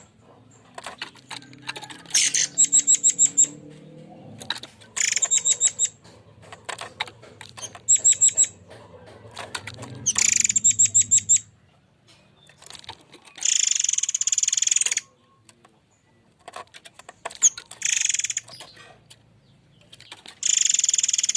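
Murai air mancur bird giving its harsh rapid-fire 'tembakan' call: short bursts of quick, high, evenly repeated notes, about eight bursts separated by pauses, with a faint low hum beneath the first half.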